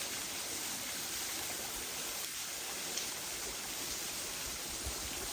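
Steady rush of falling water from a waterfall, an even hiss without breaks.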